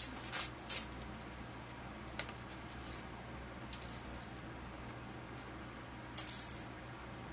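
Hands handling and opening a small package: a few short rustles and clicks near the start, one around two seconds in and a brief rustle around six seconds in, over a steady low hum.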